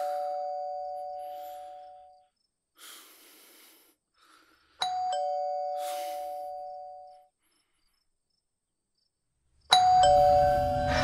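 Electric doorbell chime ringing "ding-dong" over and over, about every five seconds: a higher note, then a lower one, each fading away over about two seconds.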